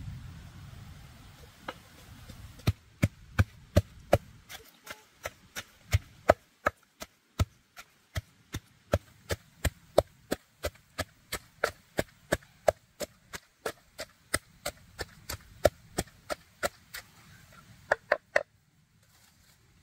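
A blade chopping steadily on wood, about three sharp strikes a second, with a short quick flurry of three strikes near the end.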